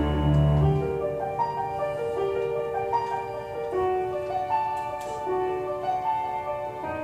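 Slow keyboard passage in a piano sound, single held notes entering one after another, with a low bass note dying away about a second in.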